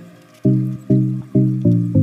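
Background music: a low, plucked-sounding melody, with a new note about every half second.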